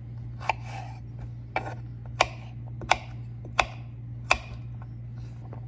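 Knife chopping potatoes on a cutting board: about half a dozen sharp, separate knocks, each a little under a second apart.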